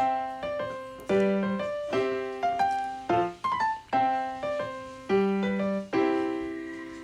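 Background music: a gentle piano melody, notes struck about every half second and left to ring and fade.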